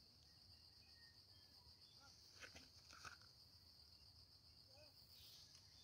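Near silence outdoors: a faint, steady high insect drone, with a couple of faint short chirps.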